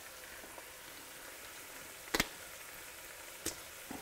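Beef mince sizzling steadily as it fries in a hot pan, with a few sharp clicks: a double one about two seconds in and single ones near the end.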